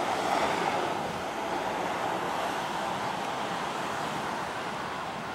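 GT22 diesel locomotive running as it approaches slowly, heard as a steady rushing noise that swells slightly about half a second in and then eases off.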